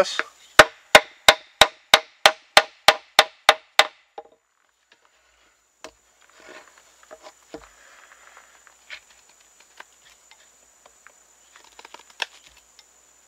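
A wooden baton strikes the spine of a fixed-blade knife about ten times, roughly three blows a second, pounding the blade straight down into a green hardwood stick to cut the slit of a stake notch. After that come fainter scattered scrapes and clicks as the knife works wood out of the cut.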